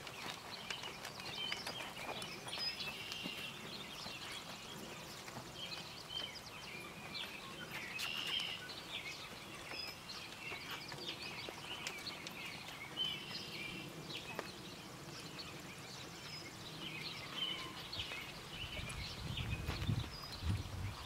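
Small birds chirping and singing in many short calls over steady outdoor background noise, with the muffled hoofbeats of a horse loping on soft arena dirt. A low rumble builds near the end.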